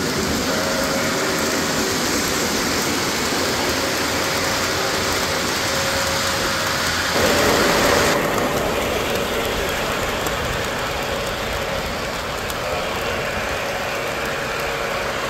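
Three-rail O gauge model trains running on the layout: a steady rumble and hiss of metal wheels on the track. About seven seconds in it briefly gets louder, then the sound changes suddenly about a second later.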